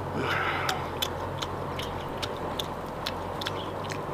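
A person chewing meat torn off stewed beef spine bones, with wet mouth clicks about two or three times a second over a steady low hum.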